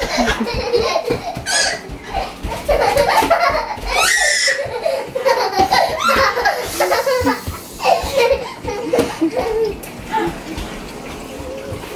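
A toddler laughing and squealing while being playfully chased, with bare feet thudding on a wooden floor.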